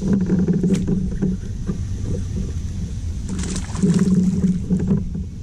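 Muffled low rumble of a fishing kayak on the water, with light clicks and rattles about a second in and again a little past three seconds.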